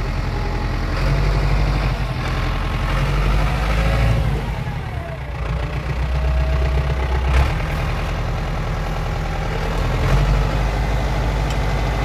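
Ford 6610 tractor's four-cylinder diesel engine running as the tractor is driven slowly, heard from inside its cab. The engine note dips briefly about five seconds in.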